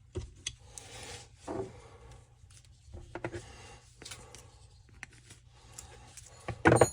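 Small scrapes, rubs and clicks of cut-off saw parts being handled and fitted by hand, with a brief louder knock near the end.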